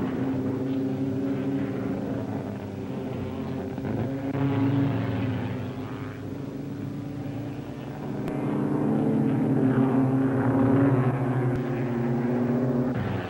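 Several sprint car engines running at racing speed, their exhaust notes rising and falling. The sound shifts abruptly about eight seconds in and again near eleven and a half.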